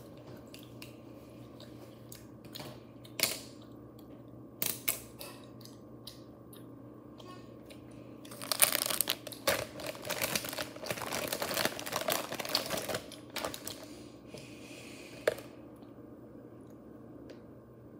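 Handling noise of small objects close to a phone microphone: scattered clicks and taps, then about five seconds of dense rustling and clattering about halfway through, and one sharp click a little later.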